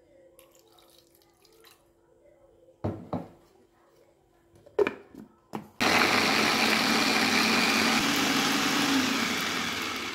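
A few short knocks of kitchen things being handled, then a kitchen tap turned on, water running in a steady stream for the last four seconds.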